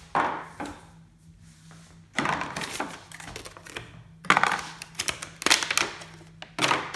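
Cardboard box and plastic packaging of a solar power bank being handled and opened: rustling and clattering in several bursts, with sharp clicks. The longest burst comes about four seconds in.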